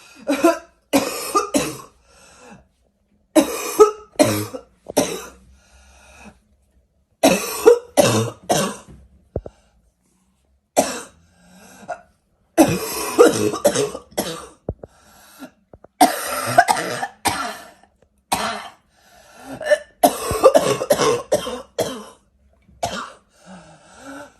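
A person's barking cough, coming in repeated fits of two to four coughs each, with short pauses between the fits.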